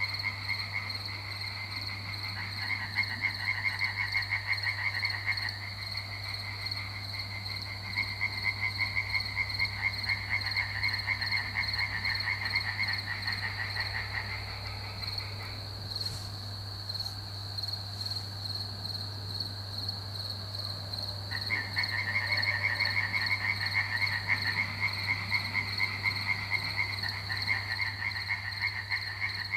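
A chorus of frogs croaking in fast pulsed runs a few seconds long, with a pause of several seconds in the middle. Under it runs a steady high-pitched trill.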